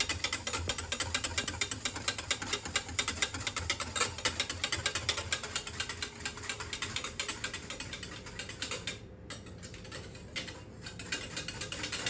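Wire whisk beating avgolemono egg-lemon sauce in a stainless steel saucepan, the wires clicking rapidly and steadily against the pan as the sauce is heated to thicken slightly. The strokes go quieter for a couple of seconds near the end, then pick up again.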